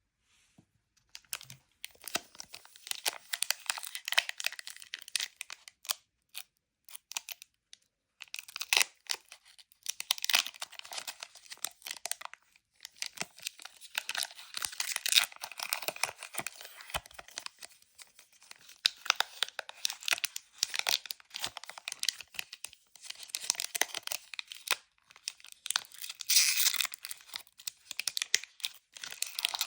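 Crinkly Pokémon card packaging being handled and torn open, a dense run of crackling and tearing that starts about a second in, with short pauses.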